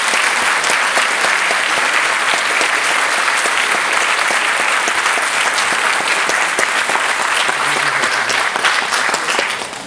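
A large audience applauding steadily, dense clapping that dies down near the end.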